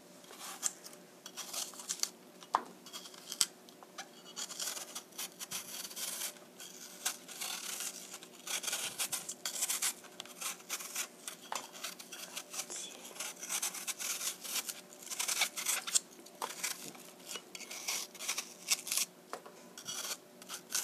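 Small kitchen knife peeling the skin off a halved apple: short, irregular scraping strokes of the blade cutting through the peel, one after another.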